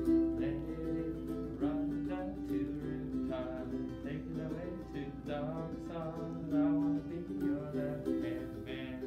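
Ukulele being played, a tune of plucked notes that change pitch every second or so.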